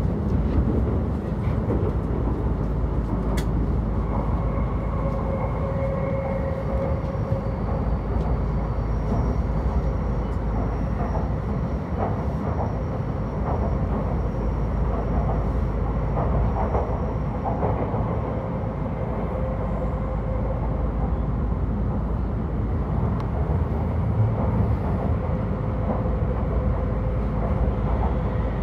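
Hokuriku Shinkansen train running, heard from inside the passenger cabin: a steady low rumble with faint high tones that come and go.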